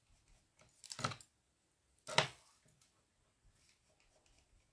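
Two short scuffs about a second apart, the second louder, from a cloth-covered fingertip dabbing colour onto foam flower petals on the craft mat.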